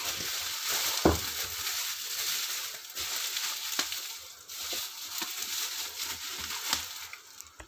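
Bubble wrap rustling and crinkling as it is wound around and squeezed over a small box by gloved hands, with scattered small clicks and a sharper click about a second in. It fades away near the end.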